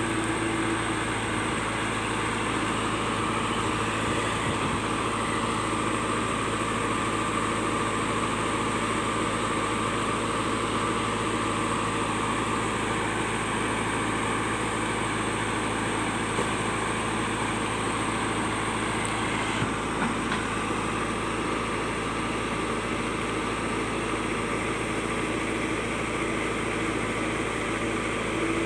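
JCB backhoe loader's diesel engine running steadily, with a few faint knocks about twenty seconds in.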